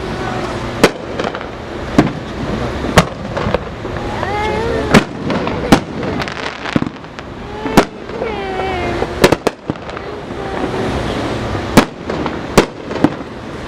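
Fireworks going off: about a dozen sharp bangs at irregular intervals, roughly one a second, over a continuous noisy background.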